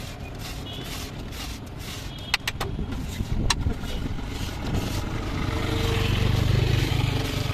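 Metal scraper scraping across a flat iron tawa as chickpea curry is pushed off into a steel bowl, with a few sharp metal clinks. From about the middle a passing road vehicle's engine rumble swells and becomes the loudest sound.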